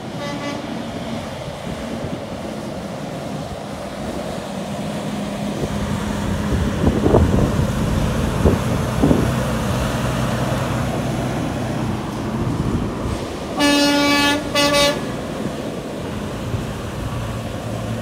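Semi trucks' diesel engines running as they pull past close by, louder in the middle with a few sharp knocks. About two-thirds of the way through a truck horn sounds two short blasts in response to the arm-pump honk signal.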